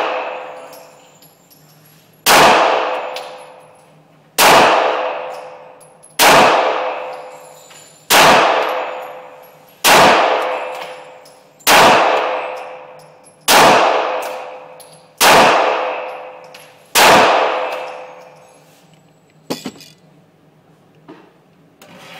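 Nine shots from a 9mm Glock pistol, slow aimed fire at about one shot every two seconds, each ringing out in a long echo in the concrete-walled indoor range. Two faint clicks follow near the end.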